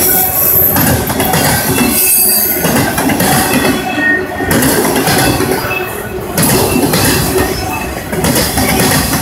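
Freight train of autorack cars passing fast and close: steel wheels rumbling and clattering on the rails, with brief high-pitched wheel squeals now and then.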